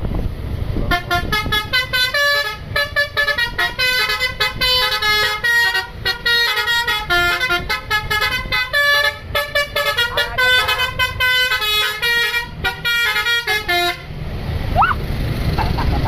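Tour bus's basuri telolet horn playing a fast, lilting melody of short notes that step up and down in pitch, starting about a second in and cutting off about two seconds before the end. A low engine and wind rumble runs underneath.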